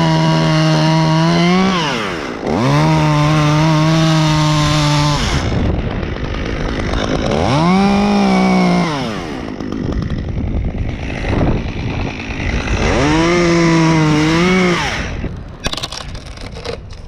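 Top-handle chainsaw cutting through wood, run up to full throttle in four bursts with rougher, lower running between them. A few sharp clicks come near the end.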